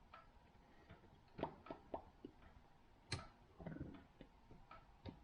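Faint, scattered clicks of LEGO plastic pieces being handled and turned, the sharpest about a second and a half and three seconds in.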